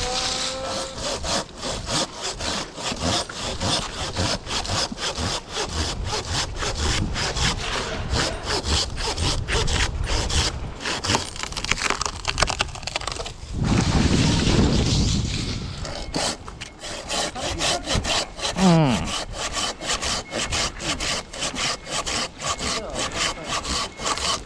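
Silky Sugoi 360 curved pull-saw cutting through chestnut wood with fast, steady back-and-forth strokes, the teeth rasping through the log. Past the middle the strokes briefly grow heavier and louder.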